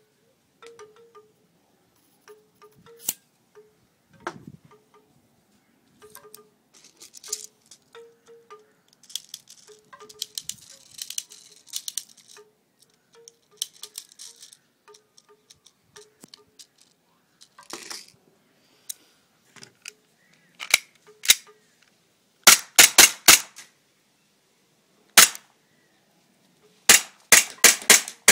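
Green gas hissing in short bursts as a can's nozzle is pressed onto an airsoft pistol magazine, among small plastic clicks. In the last third, a gas-powered KM19 Glock-style airsoft pistol firing: sharp shots in quick strings of several, with single shots between.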